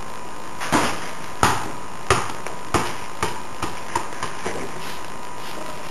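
A soccer ball bouncing on a hard floor: about nine bounces, coming quicker and fainter until it settles.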